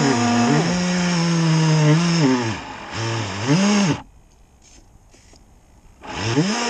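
RC model boat's electric drive motor whining, its pitch dropping and rising with the throttle several times. It cuts out about four seconds in, then spins back up about two seconds later with a rising whine.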